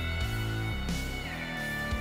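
Background music: a guitar-led track with a steady drum beat and a bent guitar note about a second in.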